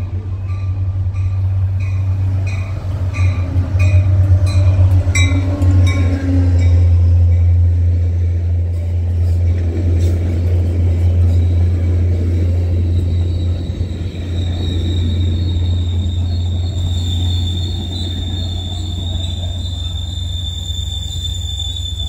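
ACE commuter train of bilevel coaches rolling into the station over a steady low rumble, with a rhythmic ringing about twice a second in the first six seconds. From about halfway, the wheels give a steady high-pitched squeal as the train slows.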